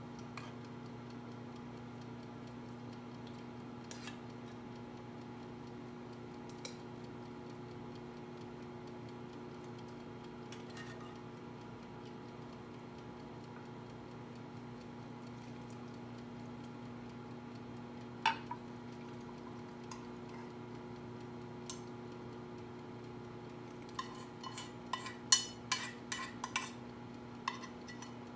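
A metal spoon clinks and scrapes against a small saucepan. There are a few scattered taps, one sharp clink about two-thirds of the way through and a quick run of clinks near the end, over a steady low hum.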